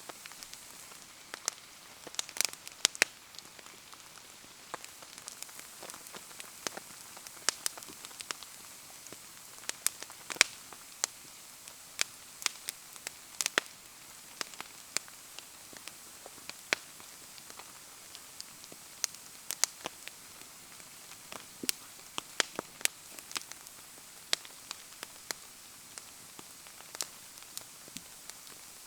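A wood bonfire crackling with sharp, irregular pops, under a steady hiss of falling rain.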